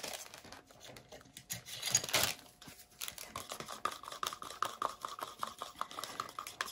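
Irregular small clicks, knocks and rattles of containers and caps being handled, with a faint steady tone joining about three seconds in under rapid ticking.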